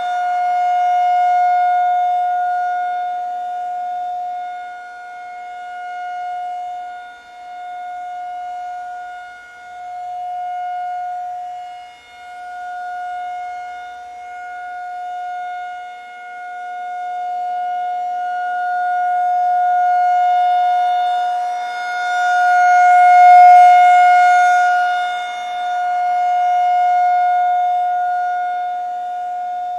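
Outdoor tornado warning siren sounding one steady, unwavering tone. Its loudness swells and fades again and again over several seconds, loudest about three-quarters of the way through.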